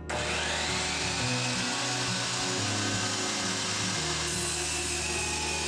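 DeWalt sliding compound miter saw starting up with a rising whine, then running steadily as the blade is brought down through a clamped wooden board.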